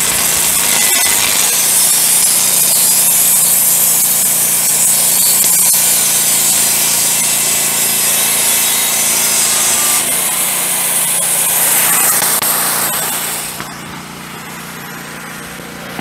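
Wood-Mizer LT15 Go band sawmill cutting through a hemlock log, a loud steady hiss of the band blade in the wood over the running engine. About thirteen seconds in the blade clears the log and the cutting noise falls away, leaving the engine running.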